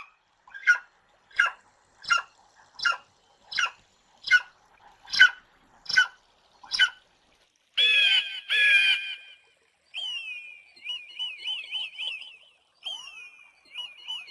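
Eagle calling: about ten short, sharp calls a little under a second apart, then two longer screams about eight seconds in, then a fast chattering run of high whistled notes.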